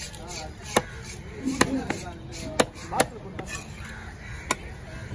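Heavy knife chopping diamond trevally into chunks on a wooden block: about five sharp, irregularly spaced chops.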